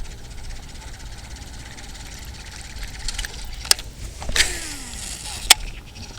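Wind rumbling on the microphone, with a cast on a Daiwa Tatula SV TW 103 baitcasting reel: a sharp click, then a swish with the spool's falling whine, then another sharp click as the reel is re-engaged.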